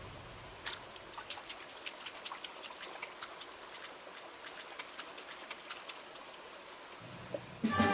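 Faint outdoor ambience with a string of irregular sharp clicks and ticks, several a second.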